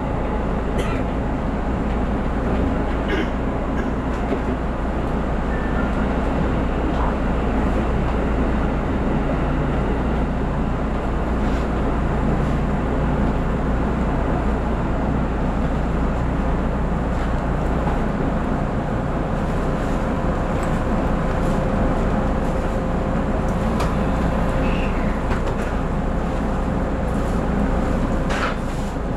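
JR Central 313 series electric train heard from inside the cab: a steady running rumble of wheels on rail and traction equipment as it runs into a station. About two-thirds of the way in the low hum drops away and a steady tone comes in. A click comes near the end.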